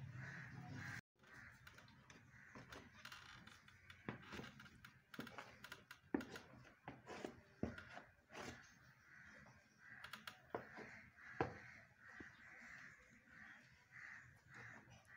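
A crowd of domestic rabbits eating fresh green grass: faint, irregular crunching clicks and rustles of stalks being chewed and tugged, with a few sharper clicks.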